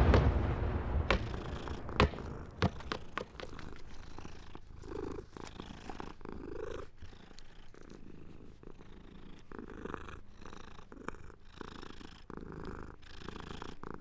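The tail of an explosion fades out at the start, broken by a few sharp cracks in the first three seconds. Then a cat purrs steadily in slow, even breaths.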